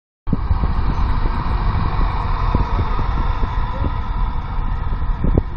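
City bus engine running close by as the bus pulls away, steady and loud, with wind buffeting the microphone.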